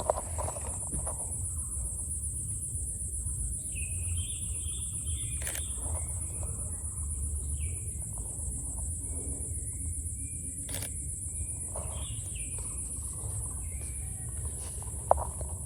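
Forest ambience: a steady high insect buzz throughout with short bird chirps and calls over it through the middle, under a low rumble of wind. A few sharp clicks stand out, the loudest near the end.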